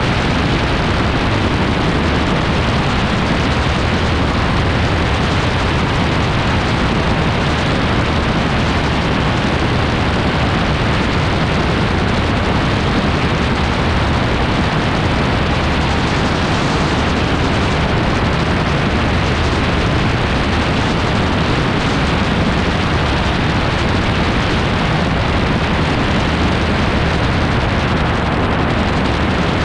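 Wind buffeting and rushing on the microphone over the steady drone of an AutoGyro MTOfree gyroplane's engine in cruising flight. The level stays even throughout.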